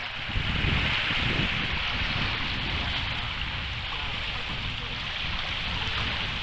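Small waves washing onto a sandy beach, a steady hiss of surf, with wind buffeting the microphone.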